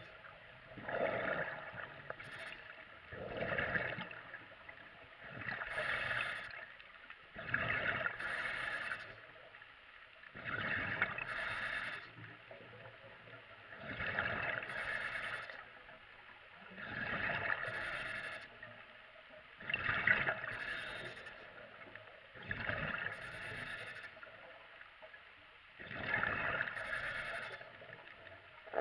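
A diver breathing underwater through a demand regulator: a rush of air on each breath and bubbling on each exhale, in a steady rhythm with a burst every two to three seconds.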